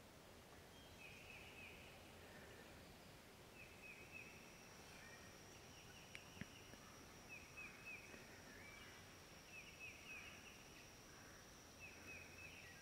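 Faint bird calls: a short phrase of quick falling notes, repeated about every two seconds. A steady high insect buzz joins about four seconds in, and there is one small tick near the middle.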